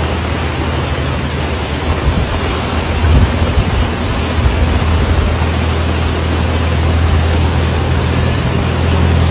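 Steady loud rush of water during a flood, with a low steady hum underneath; it swells about three seconds in and cuts off suddenly at the end.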